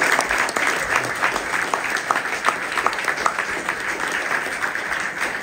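An audience applauding, with many hands clapping in a dense, steady round.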